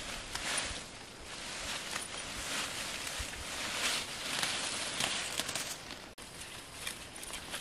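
Leaves and stems rustling as leafy vegetable greens are picked by hand, in short uneven surges of rustling every second or so.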